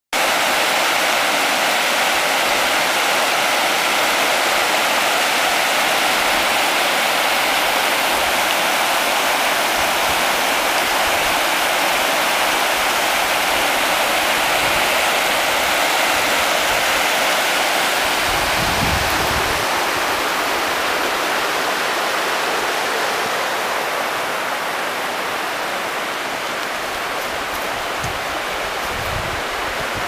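Shallow mountain stream rushing over flat rock ledges and small cascades: a steady, even rush of water that eases slightly in the last third.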